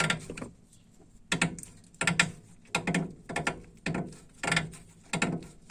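Worn LYNX anti-roll bar links creaking over and over as the suspension is worked, about a dozen short pitched squeaks, often in pairs. The owner had first taken the noise for the steering rack.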